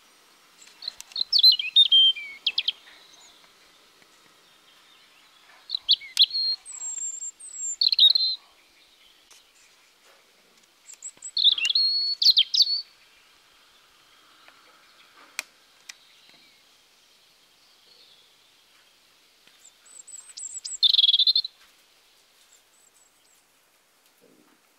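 European robin singing: four short, high warbling phrases of quickly changing notes, each separated by a pause of several seconds.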